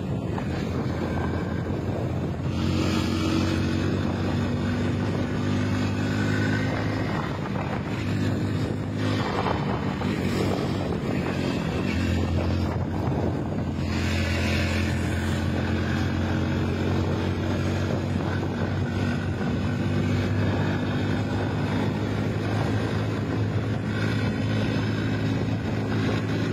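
Motorcycle engine running at a steady cruise, under heavy wind rush on the microphone from riding speed.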